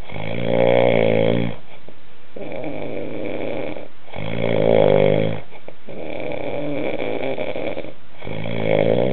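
A man snoring loudly: three long, pitched snores about four seconds apart, with quieter, breathy breathing between them.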